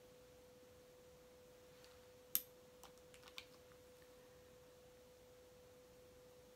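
Near silence under a steady faint hum, with a few light clicks a little past two seconds in from a makeup brush and plastic powder compact being handled.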